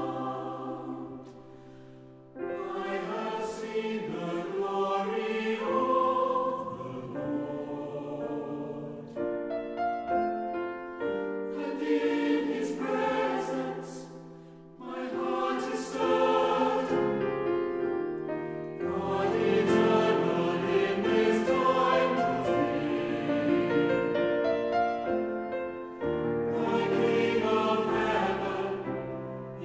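Choir singing a worship song in long phrases, with brief pauses between them.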